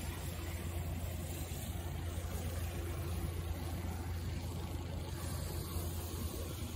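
Steady low engine hum of small snow-plow utility vehicles running as they clear the street, over a soft hiss.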